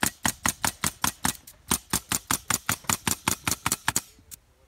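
Pneumatic coil roofing nailer firing nails in quick succession, about six shots a second, as metal flashing is nailed down to the roof deck; the firing stops about four seconds in.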